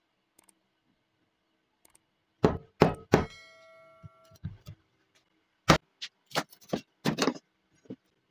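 A steel meat cleaver knocking on a wooden tabletop: three sharp knocks about two and a half seconds in, the last one followed by about a second of bright metallic ringing from the blade, then another run of about six knocks of varying strength in the second half.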